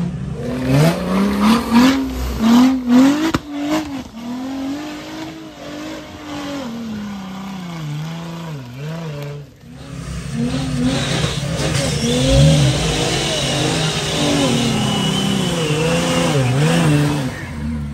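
Off-road Jeep engine revving up and down again and again, its pitch repeatedly climbing and falling as the driver works it through slippery mud. From about eleven seconds in, a hiss of spinning tyres rises with it.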